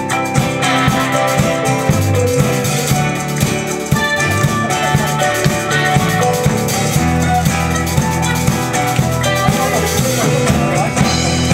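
Live band playing with a steady beat: drum kit, electric bass, acoustic guitar and keyboard.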